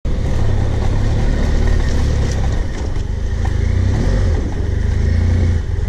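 BMW F800GS motorcycle's parallel-twin engine running as the bike rides along a rough dirt road, heard from the onboard camera, with two short dips in level.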